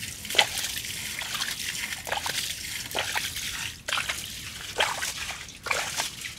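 Bare feet squelching and sloshing through soupy mud and shallow muddy water, a run of irregular wet sucks, drips and small splashes.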